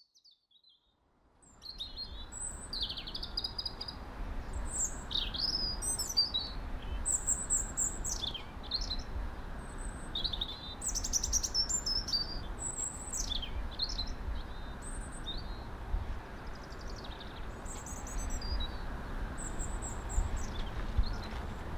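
Small songbirds chirping: many short, high calls, mostly falling in pitch, one after another, over a steady low rumble. The sound fades in about a second and a half in.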